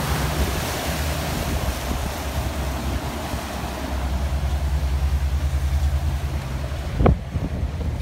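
A motorboat's engine running steadily under a boat under way, with wind buffeting the microphone and water rushing past the hull. A single thump comes about seven seconds in.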